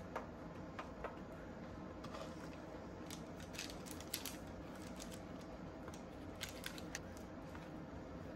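Irregular light clicks and taps of a utensil against a pan while brittle is being made, over a low steady hum.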